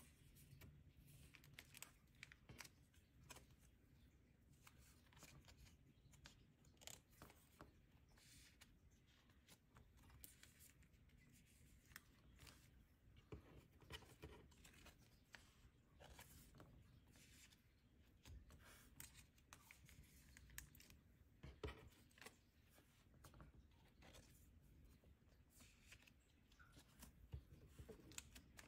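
Faint rustling and crinkling of clear plastic binder sleeve pages as photocards are handled and slid into their pockets, with scattered soft clicks throughout.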